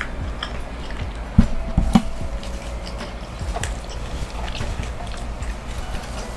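Close-miked mouth sounds of someone chewing a loaded taco: scattered small wet clicks and smacks, with a few soft thumps about a second and a half in.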